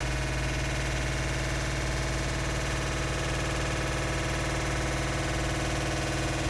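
Washing machine making a steady, eerie drone, several tones sounding at once over a low hum.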